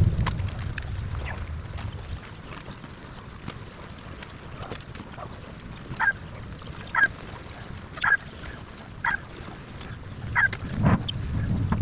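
A bird repeating a short call about once a second, six times in the second half, over a steady high drone of insects. Low rumble like wind on the microphone at the start and again near the end.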